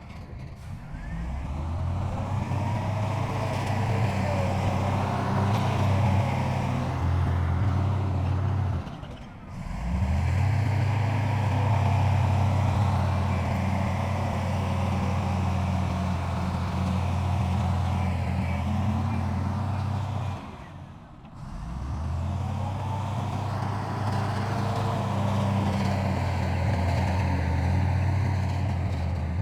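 Heavy diesel engine of earthmoving machinery running steadily, dropping away briefly twice, about nine and about twenty-one seconds in.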